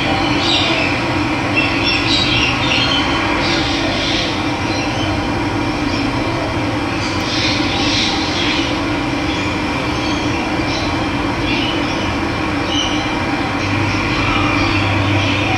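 Steady rush of running water with birds chirping in short bursts over it, the busiest chirping coming about half a second in, around 2 to 4 seconds in, and again around 8 seconds in.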